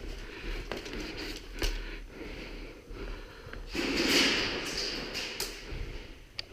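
Movement and handling noise close to the microphone: a rustle of about a second and a half near the middle, with scattered sharp clicks and taps around it.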